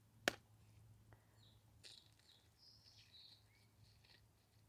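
A single sharp click, then faint bird chirps scattered through the rest of an otherwise quiet moment.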